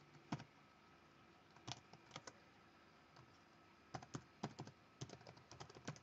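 Faint typing on a computer keyboard: a few scattered clicks in the first seconds, then a quicker run of keystrokes near the end.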